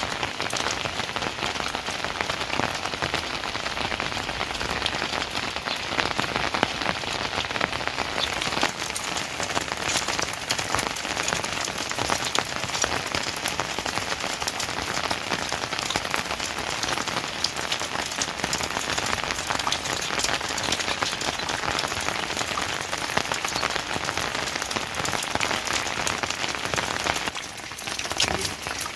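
Steady heavy rain falling, a dense patter of many drops, easing briefly about 27 seconds in.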